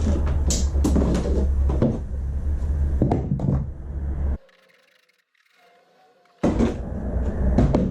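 Irregular knocks and clatter of hand tools and plastic body panels being worked on a dirt bike, over a heavy low rumble. The sound comes in two loud stretches that start and stop abruptly, with a short near-quiet gap between them.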